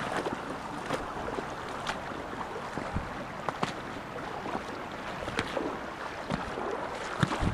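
Footsteps through dry leaves and twigs on a streambank, with scattered snaps and knocks, over the steady sound of a small stream flowing.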